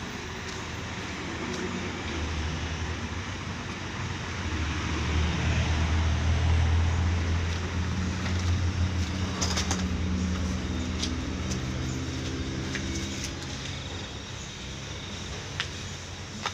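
Hino truck's diesel engine idling at a steady pitch, growing louder toward the middle and then fading away. A few sharp clicks sound over it.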